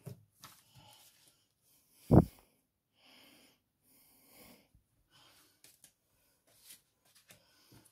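Handling of paper craft cards: soft rustles and small clicks of card stock being picked up and moved, with one loud dull thump about two seconds in and a couple of soft hissing rustles after it.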